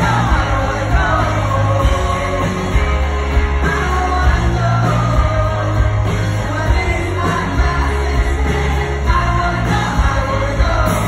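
Live pop-rock band playing: a male voice singing over piano and a drum kit.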